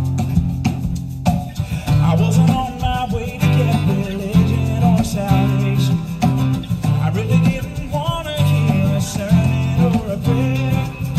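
Live country-gospel band: acoustic guitars strumming over strong, repeating low notes, with a lead vocal singing from about two seconds in.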